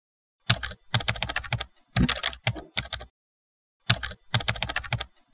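Typing on a computer keyboard: quick runs of key clicks, a longer run of about two and a half seconds, a short pause, then a shorter run, with typing starting again at the very end.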